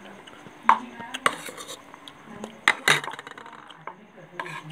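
Metal spoons clinking and scraping against plates and stainless steel bowls as people eat, in several sharp clinks, the loudest just under a second in and two close together near three seconds in.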